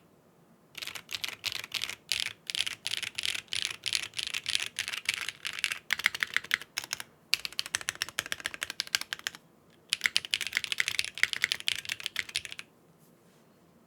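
Fast typing on a Geonworks W1-AT R2 mechanical keyboard, built plateless and top-mounted on a 1.2mm PCB with BSUN BCP linear switches and GMK keycaps: rapid runs of keystrokes with two short pauses. The typing stops near the end.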